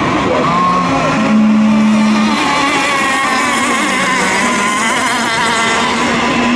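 Several radio-controlled racing boats' engines running at high revs together, their pitches wavering against one another as they race.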